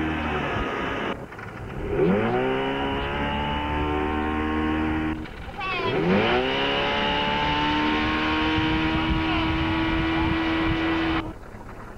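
Tow boat's engine throttling up hard, its pitch sweeping from low to high, twice, as it pulls a water skier up out of the water, then running steadily at high revs. The sound breaks off abruptly before each run-up and again near the end.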